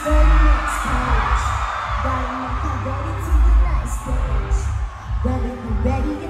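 A hip-hop track played loud over a concert sound system, with heavy bass hits about every three seconds and a voice rapping over the beat.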